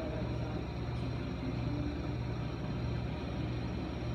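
Kenmore refrigerator compressor running with a steady low hum and a fine, rapid buzz.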